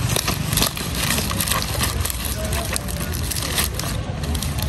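Dry banana leaves crackling and rustling as they are handled and pressed down, with many short, irregular crackles over a low steady rumble.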